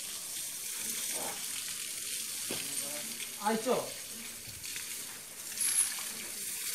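Water spraying from a garden hose onto an elephant's hide: a steady hiss of spray.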